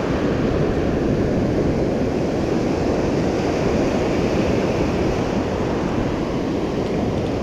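Steady rush of ocean surf at the water's edge, with wind on the microphone.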